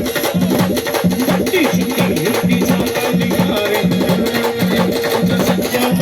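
Indian brass band playing, with fast drumming under a low brass note that repeats about twice a second and a held higher tone above it.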